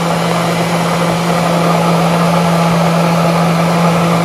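Nutribullet countertop blender running at a steady speed, whirring as it blends a green liquid mixture.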